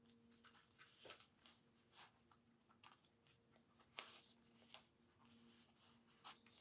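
Near silence: faint scattered clicks and rustling of hands handling the pistol and clothing, the sharpest click about four seconds in, over a faint steady hum.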